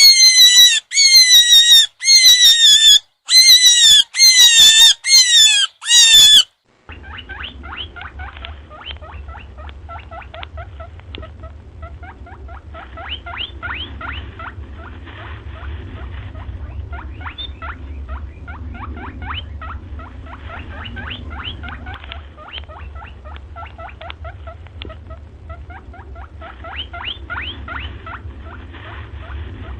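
Rabbit screaming: about seven loud, high-pitched squeals in quick succession, each falling slightly in pitch. About seven seconds in, it gives way to a rabbit eating, rapid crunching clicks of chewing over a steady low hum.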